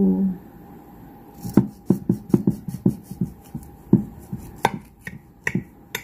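Kitchen knife sawing down through a baked loaf of banana bread, a quick run of short cutting strokes followed by a few slower, sharper ones as the slice is finished.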